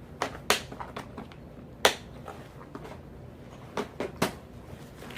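Plastic tackle boxes being handled, giving about five sharp clicks and knocks, the loudest about two seconds in.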